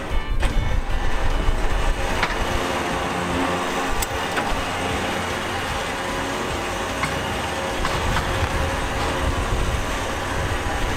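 Steady mechanical running of a Haulit pallet trailer's powered push-off bar as it pushes a strapped stack of pallets toward the back of the bed, with a few faint clicks.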